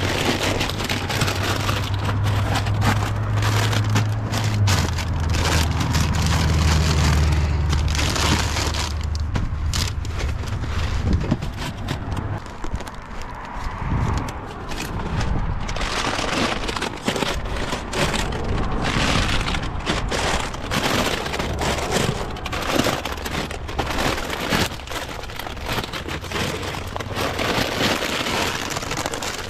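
Plastic snack bags crinkling and rustling as they are handled and pushed onto the shelves of a small wooden food-pantry cabinet. A low hum runs under it for the first ten seconds or so, dropping in pitch about five seconds in, then fading out.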